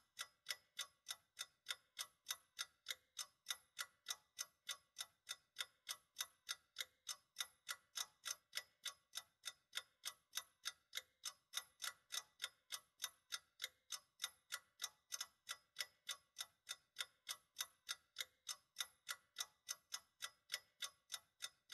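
Clock ticking, a faint, quick, even tick about three times a second.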